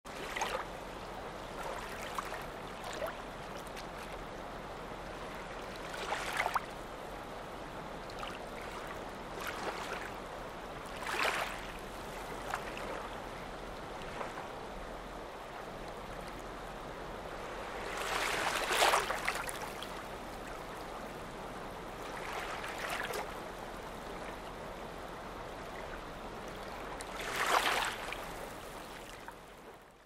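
Lakeside water ambience: small waves lapping at the shore over a steady wash of water. Louder splashy laps come every few seconds at irregular intervals, the biggest about two-thirds of the way through and near the end, and the sound fades out at the very end.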